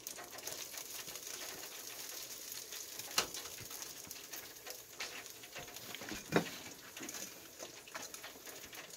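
Batter-coated striped bass fillets frying in hot oil in an electric deep fryer, a steady fine crackling sizzle. Two sharp clicks come about three and six seconds in.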